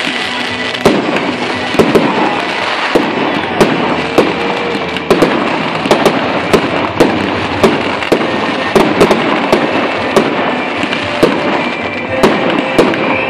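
Aerial fireworks display: a rapid, irregular string of sharp bangs from bursting shells, about two a second, over a continuous crackling hiss.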